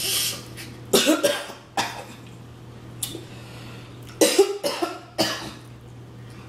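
A person coughing in short sharp bursts about a second apart, with a cluster of coughs a little past halfway, over a steady low hum; the coughing follows a mouthful of spicy crab-boil sauce.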